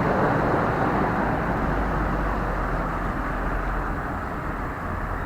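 Street traffic noise: a steady rumble and hiss of a passing motor vehicle that slowly fades away.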